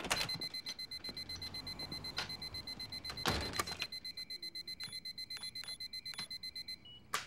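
Home security alarm keypad beeping rapidly in a steady high tone, about eight beeps a second, with a heavy thump about three seconds in. Four keypad button presses follow, each with its own short beep. The rapid beeping then stops, a single brief tone sounds and a sharp click ends it, as when the alarm's entry delay is disarmed with a code.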